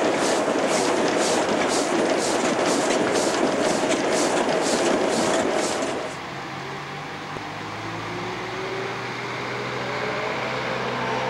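Ok22 steam locomotive running, heard loud from the cab, with a hissing beat about twice a second. About six seconds in, this gives way to a quieter, distant hum with low steady tones and an engine note slowly rising in pitch.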